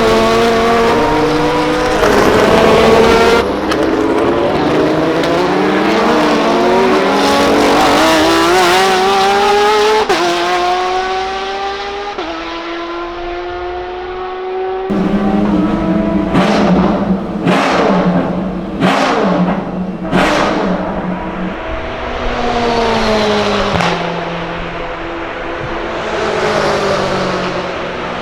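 Race car engines running at speed as several cars pass one after another, their engine notes sliding up and down and falling in pitch as each goes by. There are four short sharp bursts in the second half.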